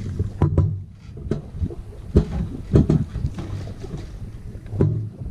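Wind buffeting the microphone and water washing along a sailing catamaran's hulls, a low steady rumble, with several sharp knocks and thuds scattered through it, the loudest about two and three seconds in.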